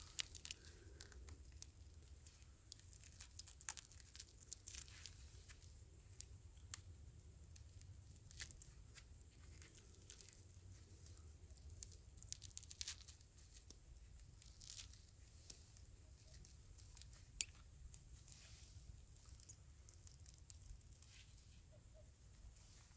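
Faint scattered crackles and snaps with soft tearing, from a campfire and the charred skin of an ember-roasted sweet potato being broken open.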